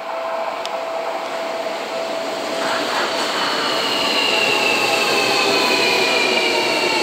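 Seibu 40000 series electric train running along the platform, its noise growing louder as it comes closer. From about three seconds in, a high whine slowly falls in pitch.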